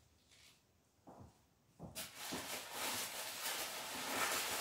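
Bubble-wrap packaging crinkling and rustling as a wrapped part is worked out of a polystyrene-lined box. A soft knock comes about a second in; the crackle starts about two seconds in and grows louder.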